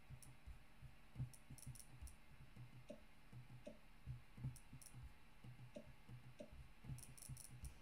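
Faint, irregular clicks and ticks from an iOS app being tested: the date-picker wheel ticking as it is scrolled and clicks on a button that plays a short sound effect.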